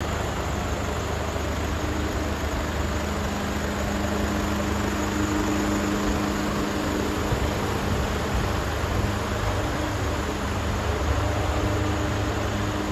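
Mercedes Actros 2545 tractor unit's 450 bhp turbocharged diesel engine idling with a steady, even low hum.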